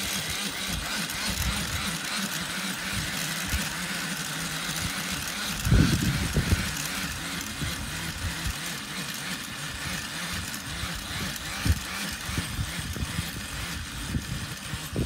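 Corded electric tiller running steadily, its rotating tines churning dry soil. There are louder low thumps about six seconds in and again near the end.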